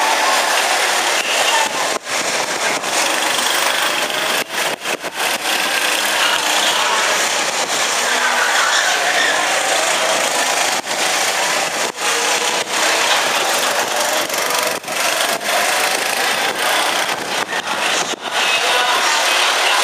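Go-kart engines running as several karts lap the track: a loud, steady engine noise with a few brief dips in level.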